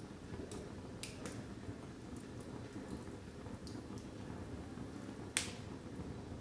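Split wood logs burning in a fireplace: a steady low rush of flame with scattered crackles, and one sharp, loud pop near the end.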